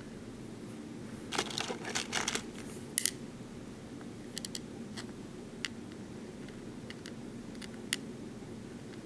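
Small BeadOs craft beads clicking and tapping against a plastic pegboard tray as they are picked up and set in place by hand: a quick cluster of clicks in the first few seconds, then scattered single ticks, over a steady low hum.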